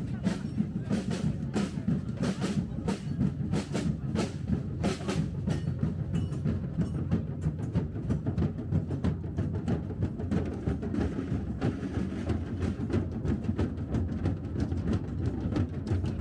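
Drums beating a steady marching rhythm, about two strokes a second at first, then quicker and lighter strokes, over a low crowd rumble.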